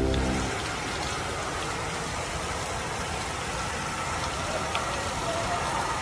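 Heavy rain falling, a steady even hiss, with the tail of dramatic music dying away in the first half second.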